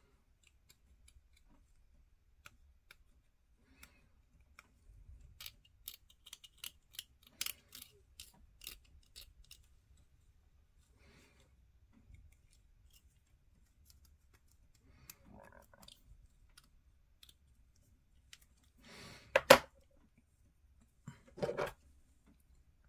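Hobby craft knife scraping and trimming a small plastic miniature part, making light clicks and scratches. Near the end come two louder knocks.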